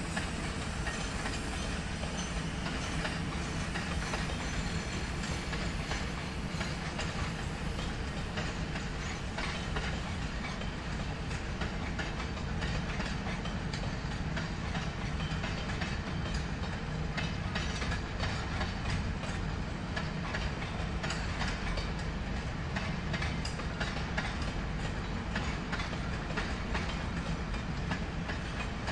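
Empty freight cars rolling past on the track, the wheels clattering steadily over the rail joints with many short knocks and rattles.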